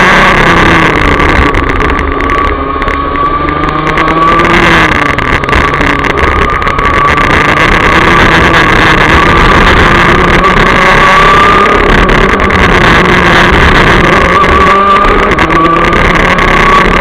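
Rotax DD2 kart's 125 cc two-stroke engine, heard onboard at racing speed. Its note dips about two seconds in, then climbs again and holds high.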